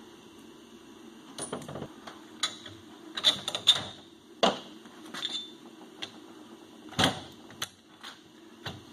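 Metal clicks and clanks of hand tools and suspension hardware being handled while a shock absorber is unbolted from a snowmobile rear suspension. There are about eight sharp knocks at irregular intervals, with no motor running.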